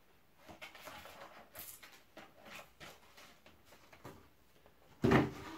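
Cardboard mailer box and packaging rustling and scraping as it is opened and emptied, with a short loud thump about five seconds in.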